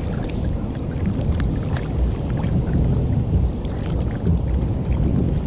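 Wind rumbling on the microphone over open sea, with small splashes and water ticks as a hooked Pacific bonito thrashes at the surface beside a kayak and is lifted out.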